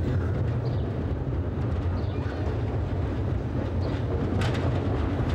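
Steady low rumble of outdoor town ambience, with a few faint clicks about four and a half seconds in.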